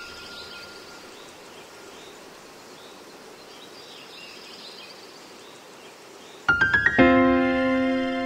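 Steady surf noise from waves breaking on the beach. About six and a half seconds in, piano-like keyboard music starts loudly with a quick run of rising notes and then a held chord.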